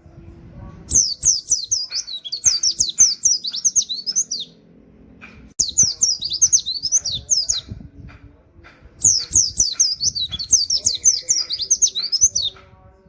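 Oriental white-eye (pleci) singing in three fast bursts of rapid, high chirping notes with short pauses between, its "nembak" song with canary-like "wit wit" notes.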